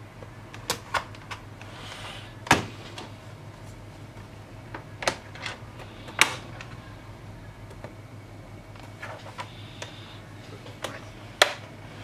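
Plastic case-opening tool prying along the seam of an Asus PU551L laptop's plastic bottom cover, with sharp clicks and snaps at irregular intervals as the retaining clips break free.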